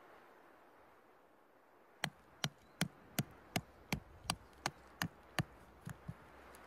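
A hand-held rock striking the head of a thin metal tent stake, driving it into the ground through a tarp's webbing loop. About ten evenly spaced blows, close to three a second, begin about two seconds in, followed by two lighter taps near the end.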